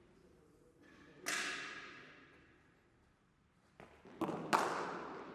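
Sharp cracks of a cricket bat striking the ball, each with a long echoing tail. One comes about a second in, then a quick run of three near the end, the last the loudest.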